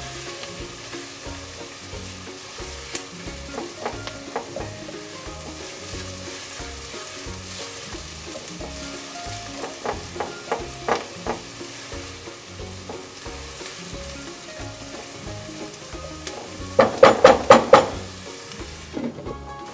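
Chopped onions frying in oil in a nonstick pot, sizzling steadily as a silicone spatula stirs them, with scrapes now and then as they cook toward golden brown. Near the end, a quick run of loud clattering.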